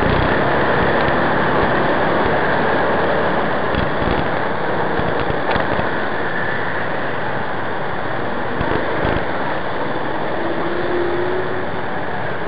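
Steady road noise from a moving motorcycle: a continuous rush of wind and engine running amid traffic.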